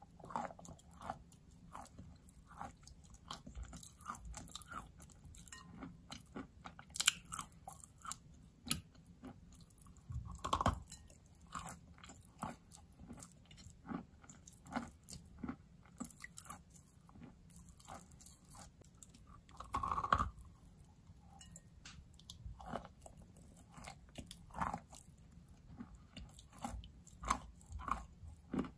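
Biting and chewing a large lump of wet white chalk: irregular crunches and soft chewing, with a few louder bites about seven, ten and twenty seconds in.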